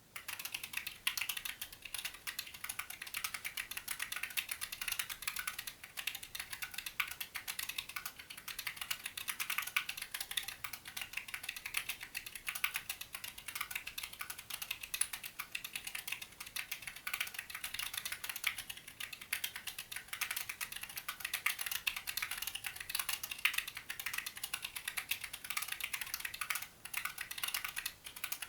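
Continuous fast typing on a Corne split mechanical keyboard with 62 g Zealios v2 tactile switches, in a brushed-steel case whose 3 mm steel plate is dampened by an EVA foam layer: a dense, steady stream of bright key clicks.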